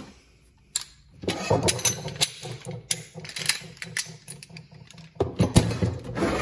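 Hard plastic tool case being slid and turned on a wooden workbench: a low scraping rumble broken by knocks and clicks of handling, with louder knocks near the end.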